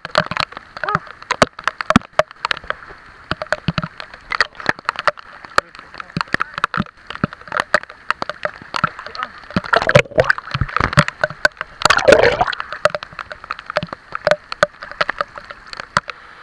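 Heavy typhoon rain striking the water surface right at a microphone held at the waterline: a dense, irregular patter of sharp drop impacts. Louder sloshing and gurgling comes about ten and twelve seconds in as water washes close over the microphone.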